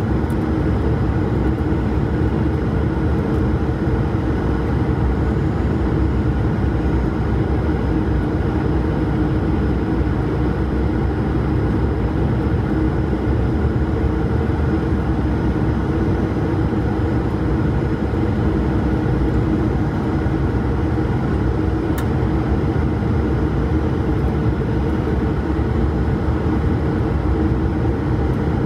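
Steady cabin noise of an Airbus A220-300 on final approach, heard from a window seat over the wing: the Pratt & Whitney PW1500G geared turbofan running and air rushing past the fuselage, with a constant low hum.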